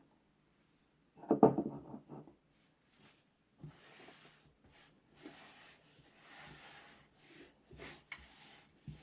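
Household cleaning sounds: a clatter of hard objects being handled about a second in, then a stretch of rubbing against a surface with a few small knocks.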